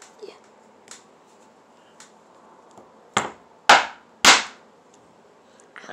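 Pointed metal scissors struck down into a chalky plaster block on a wooden table: a few faint taps, then three loud, sharp knocks about half a second apart near the middle. The knocks are loud enough to hurt the ears.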